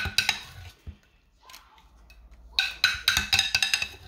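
Metal utensil clinking and tapping against a mixing bowl as cake batter is scooped: a short run of ringing strikes at the start and a longer, rapid run about two and a half seconds in.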